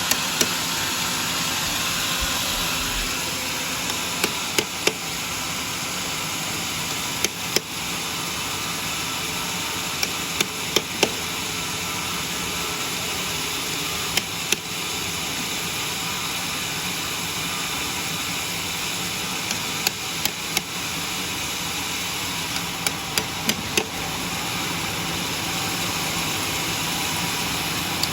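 Sharp hammer strikes in clusters of two or three, repeated every few seconds, over the steady running of a homemade sawmill's engine.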